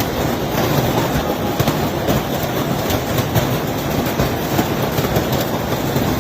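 Large hailstones pelting down in a heavy hailstorm: a loud, dense, continuous clatter of countless impacts.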